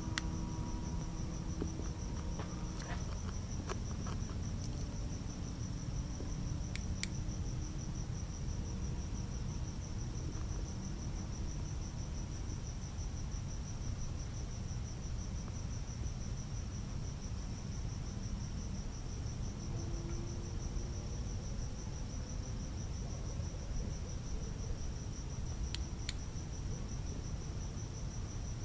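Crickets chirping in a steady, fast pulsing trill over a low, steady rumble.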